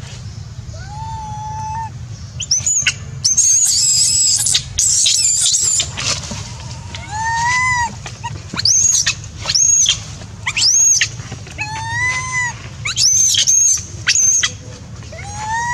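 A baby macaque gives distress calls: loud, shrill, arched screams repeated about a dozen times, the longest and loudest near the start, between softer rising-and-falling coos. They are the cries of an infant wanting its mother's milk. A steady low hum runs underneath.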